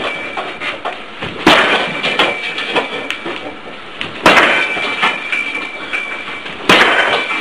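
Muay Thai low kicks landing hard on a target three times, about two and a half seconds apart, each strike followed by a short ring, with lighter knocks and shuffling between the kicks.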